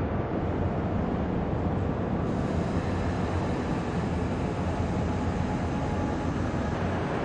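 Steady hum and rumble of car assembly-line machinery, with a few faint steady tones over a low drone.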